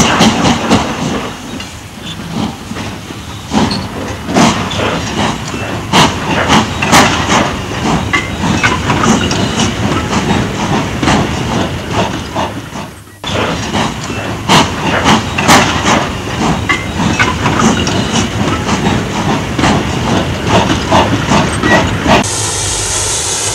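Steam locomotive hissing, with many irregular clanks and knocks over the hiss. The sound breaks off briefly about halfway through, and near the end gives way to a smooth, steady hiss.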